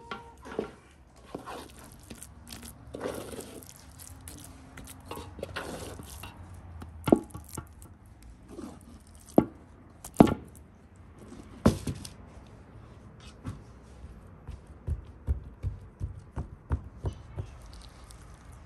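Wooden spoon scraping and knocking against a metal pot and a wooden bowl while scooping thick cooked jam. There are several sharp knocks around the middle and a quick run of softer taps near the end.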